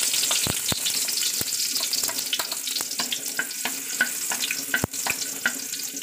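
Chopped garlic sizzling in hot coconut oil in a pan, a steady frying hiss, with a wooden spatula stirring it and clicking against the pan many times.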